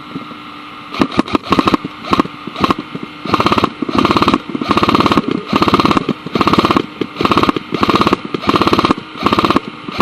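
Airsoft gun firing on full auto in a string of short bursts, a rapid clatter of shots. The bursts start about a second in and come roughly every 0.7 s.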